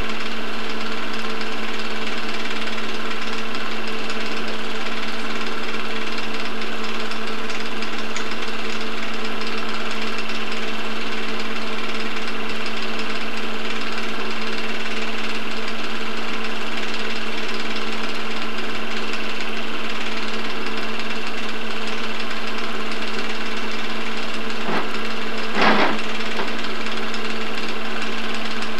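Film projector running during playback of an old home movie: a steady mechanical whir with a constant hum. One short louder burst comes near the end.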